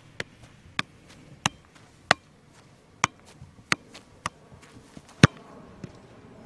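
A football being struck repeatedly, about nine sharp thuds roughly two-thirds of a second apart, the loudest about five seconds in.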